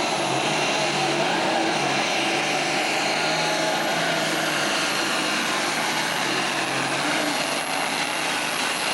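Super Stock pulling tractor's turbocharged diesel engine running flat out under full load as it drags the sled, a steady loud roar with a high whine over it.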